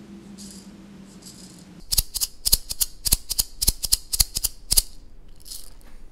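A handmade lime-wood maraca shaken, its filling rattling against the inside of the hollow head in quick sharp clicks, about five a second, starting about two seconds in and stopping shortly before the end.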